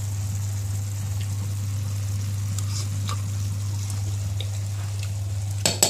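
Aubergine curry simmering and sizzling in a frying pan, a steady hiss over a low hum, with a few faint ticks and one sharp knock near the end.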